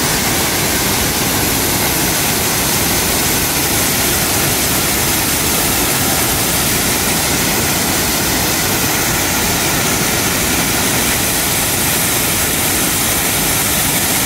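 Muddy floodwater discharging through the spillway of the Bản Mòng dam, a loud, steady rushing of water and spray.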